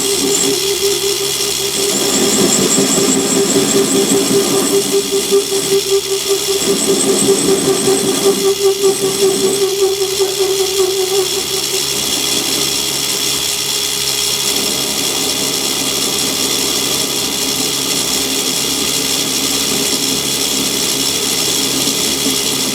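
Myford ML7 lathe running while a parting tool fed from the rear tool post cuts through a rough casting. The cut gives a wavering, pulsing whine for about the first half, after which the lathe runs on evenly.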